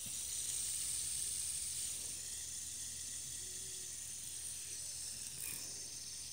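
Fidget spinner with little metal balls set in holes in its arms, spinning after a flick: a steady high whirring hiss that eases off slowly. The metal balls make it sound louder.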